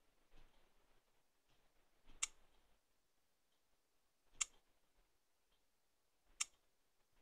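Three sharp clicks about two seconds apart as a finger taps icons on a smartphone's touchscreen, in otherwise near silence.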